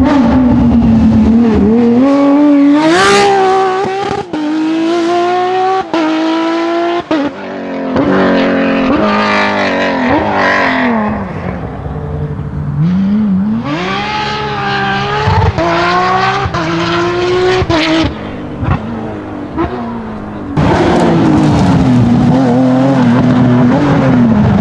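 Porsche 997 GT3 rally car's 3.6-litre flat-six engine at full throttle, its revs climbing steeply through the gears and breaking off sharply at each upshift. The sound comes in several separate passes.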